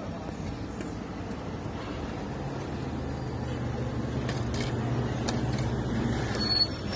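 A road vehicle's engine running, with a steady low hum that grows gradually louder. There is a brief high-pitched squeak near the end.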